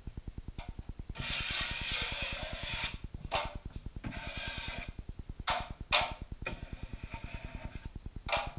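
Drywall taping knife scraping setting-type hot mud along a ceiling corner bead in long strokes, with four sharp clacks of the knife against the metal mud pan. A fast, even low pulsing of about eight beats a second runs underneath.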